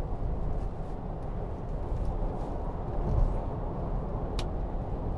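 Steady low rumble of road, tyre and engine noise inside the cabin of a moving 2009 Range Rover 3.6 TDV8, with one sharp click about four seconds in.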